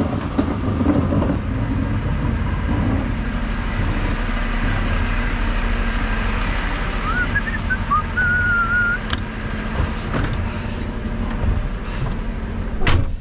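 Bin lorry engine running steadily with a low rumble. About seven seconds in, a short wavering whistled phrase rises and falls, and near the end comes a sharp knock.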